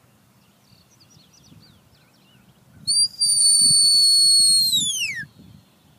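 A sheepdog handler's whistle command to a working dog: a short blip, then one long, high, steady note that slides down in pitch at the end.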